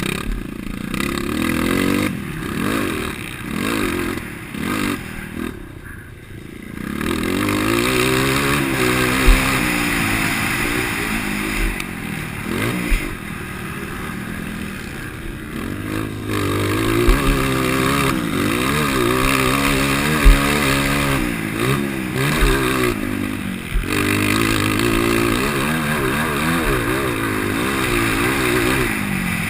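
IMS 230 motocross bike's single-cylinder four-stroke engine, stock apart from a DORE header pipe and end can, revving up and dropping back again and again as it is ridden hard. A few short sharp knocks stand out.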